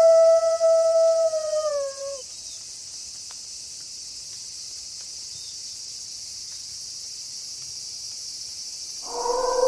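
A wolf howl holds one pitch, then drops and ends about two seconds in. A steady high hiss follows. A second, lower wolf howl starts near the end.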